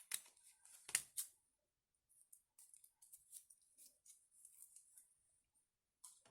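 Scissors cutting glitter cardstock: three sharp snips in the first second and a half, then a run of soft, quick cuts.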